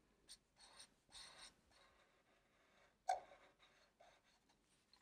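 Marker pen drawing short strokes on paper: a few faint scratchy strokes, then a sharper tick about three seconds in and one more stroke a second later.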